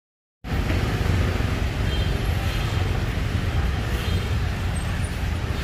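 Steady, loud background noise with a heavy low rumble, cutting in abruptly about half a second in.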